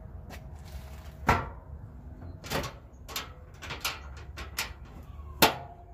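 A dog barking: about six short, sharp barks spread over a few seconds, the loudest about a second in and near the end.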